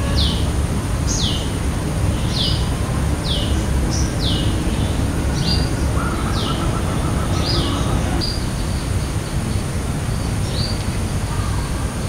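A bird repeating short, high, downward-sweeping chirps about once a second, thinning out after about eight seconds. Under them runs a steady low rumble, with a constant thin high tone above.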